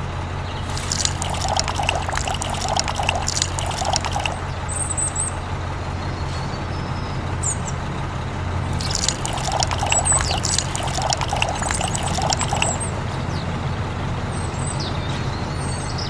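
Water poured and sloshing in a toy concrete mixer's drum in two spells, about a second in and again around the middle, as its paddles churn the cement mix. Underneath runs the steady hum of the small electric motor turning the paddles.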